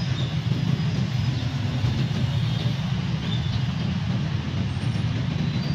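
Road traffic close by: vehicle engines running, a steady low rumble with no breaks.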